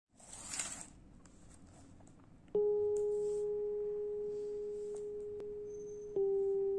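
Two clear, pure ringing tones. The first is struck about two and a half seconds in and holds, slowly fading. A second, slightly lower one takes over about six seconds in. A brief soft swish comes before the first second.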